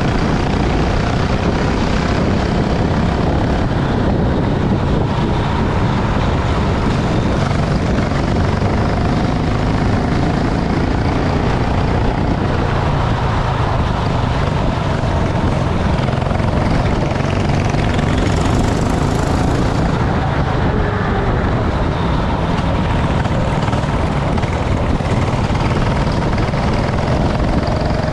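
Racing go-kart engine running under a heavy, steady rushing noise, its pitch wavering slightly up and down.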